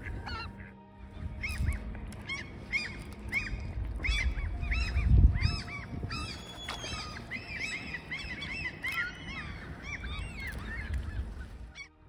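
Many birds calling: short calls that rise and fall, following each other quickly and overlapping. A low thump comes about five seconds in.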